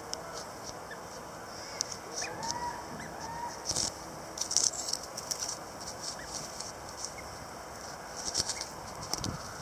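Birds calling: clusters of short, high-pitched chirps recurring every second or two, with a few lower, arching calls about two to three and a half seconds in.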